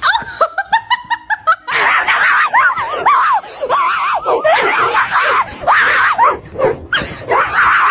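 A person's laughter in quick short bursts, then from about two seconds in, shrill, continuous shrieking and squealing laughter with many overlapping high cries.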